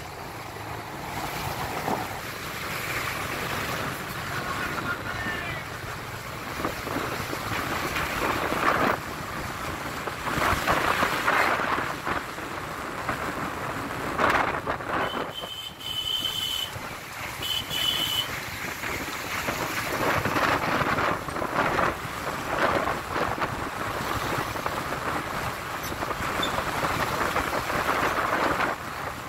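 Wind rushing over the microphone and road traffic noise from a moving vehicle passing stationary container trucks. About halfway through come two short, high horn beeps.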